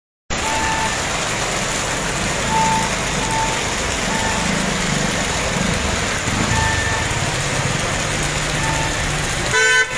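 Heavy rain falling with a steady hiss over the low rumble of vehicle engines on a wet road; short high beeps sound every so often, and a car horn toots near the end.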